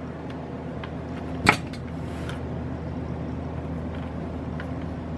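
A Phillips screwdriver and a small screw working on the plastic wheelie bar mount of an RC truck. There is one sharp click about a second and a half in and a few faint ticks, over a steady low hum.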